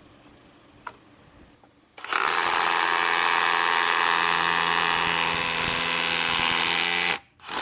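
Ridgid R86712B brushless SDS rotary hammer drilling into stone in hammer-drill mode: it starts about two seconds in, runs steadily for about five seconds, then stops, with a brief second pull of the trigger at the end.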